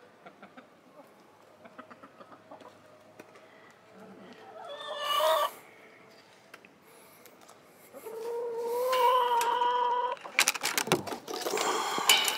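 Backyard chickens calling while they feed: a short call about five seconds in, then one long drawn-out call of about two seconds. A few sharp knocks follow just after it, with more clucking near the end.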